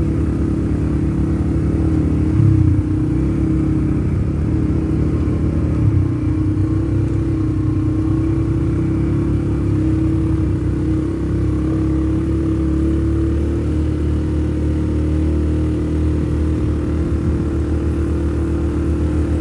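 All-terrain vehicle engine running steadily while riding, with a louder jolt about two and a half seconds in and another around six seconds.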